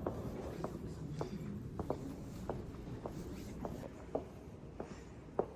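Irregular light clicks and taps, about a dozen, spaced unevenly over a low room hum.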